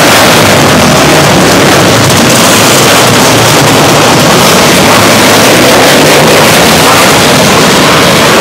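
Several winged micro sprint car engines racing on a dirt oval, running loud and steady as the cars pass close by one after another.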